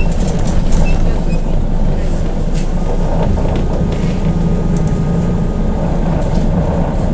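BKM 321 trolleybus running along the street, heard from inside: a steady low rumble of drive and road noise with scattered light clicks and rattles, and a faint high whine for a couple of seconds in the middle.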